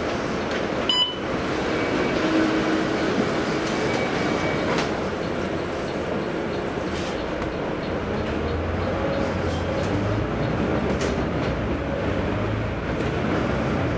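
Volvo B9TL double-decker bus heard from inside the cabin while on the move: its rear-mounted six-cylinder diesel runs under way amid steady road noise and body rattles, with the low engine rumble growing stronger in the second half. A short click about a second in.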